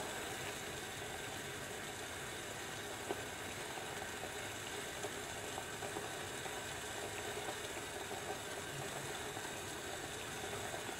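Two cups of water boiling robustly in a pot over a carbon-felt-wick alcohol stove: a steady, even bubbling.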